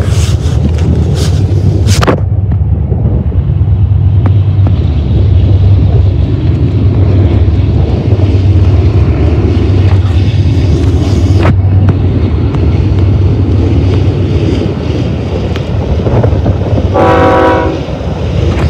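Approaching diesel freight train on the BNSF line: the locomotives make a steady low rumble, and the locomotive horn sounds one short blast near the end.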